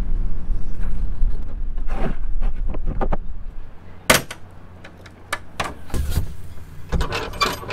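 Steady low rumble, then from about four seconds in a few sharp knocks and clunks as the lid of a white fiberglass dock box is lifted and handled.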